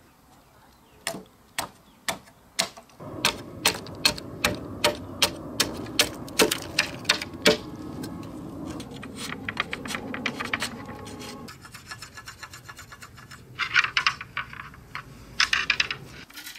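A wide-bladed chopping knife striking a thin bamboo pole, trimming it into a fishing rod: sharp knocks about two a second, then quicker, finer scraping ticks as the blade shaves the cane. Two brief rustling bursts follow near the end.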